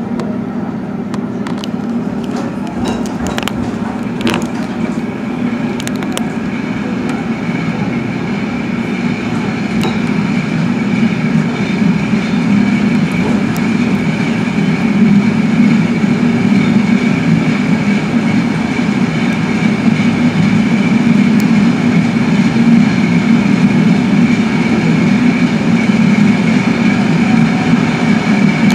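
Passenger coaches of a train rolling past on the track beside the platform, with a steady rumble of wheels on rails. There are a few sharp knocks in the first seconds, and a steady high-pitched squeal joins from about four seconds in. It all grows louder in the second half.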